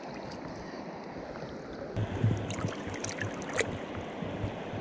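River water running and lapping in the shallows. From about two seconds in come several small splashes and low bumps as hands hold a pink salmon in the current to revive it.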